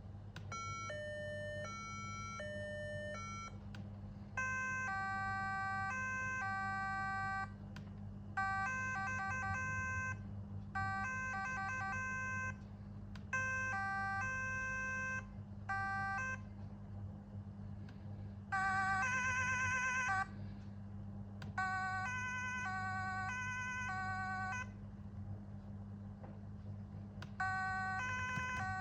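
Standby Group MCS-32 electronic siren stepping through its tones: short runs of alternating high-low two-note patterns, rapidly pulsing tones and one fast warble, each lasting a second or three with brief pauses between, over a steady low electrical hum.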